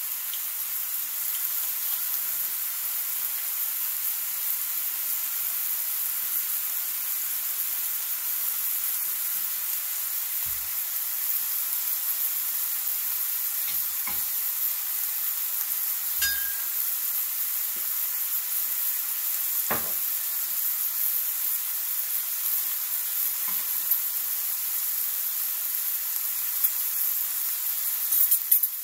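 Ground beef and freshly added minced garlic sizzling in a cast iron skillet: a steady high hiss. A few light knocks are heard along the way.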